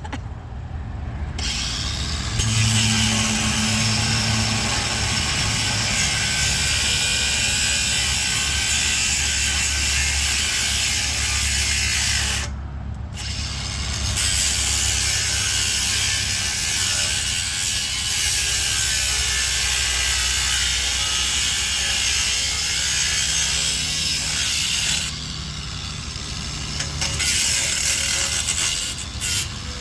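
A power tool cutting through a scrap swing, starting about two seconds in and running steadily. It eases off briefly twice, about 13 and 26 seconds in.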